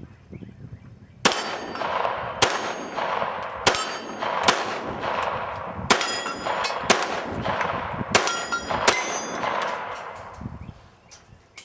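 A string of about eight handgun shots fired at steel targets, roughly one a second, each followed by the ring of a struck steel plate. The ringing dies away after the last shot.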